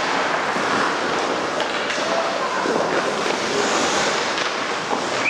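Ice hockey skates scraping and carving on a rink's ice during play, a steady rushing noise that echoes in the arena hall.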